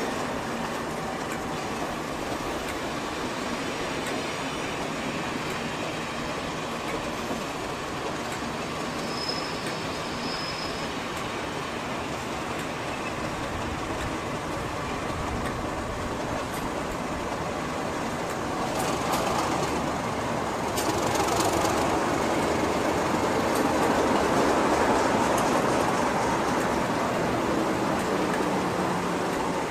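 A locomotive-hauled passenger train moving slowly along a platform, its coach wheels rolling and clicking over the rail joints, with a little wheel squeal. From about two-thirds of the way in, the English Electric V12 diesel of Class 37 locomotive 37425 gets louder as the locomotive comes close.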